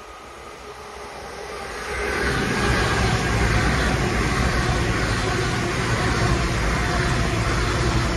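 CrossCountry Voyager diesel train passing close at speed: its underfloor diesel engines hum low and the wheels rush on the rails. The sound builds over the first two seconds, then holds steady and loud.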